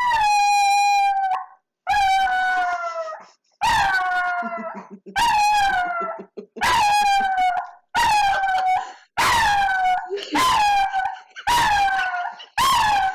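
Dog howling in about ten drawn-out, high-pitched cries, each about a second long and sliding slightly down in pitch, with short breaks between them. It is the dog's habit of howling when she plays with her squeaky toy, a sound that can pass for distress.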